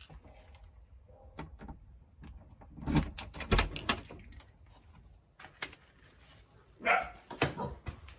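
Keys rattling and a key working the front-door lock, with a cluster of loud clicks and knocks as the latch turns and the door opens about three seconds in. About seven seconds in, a Bedlington terrier gives a short bark inside the house.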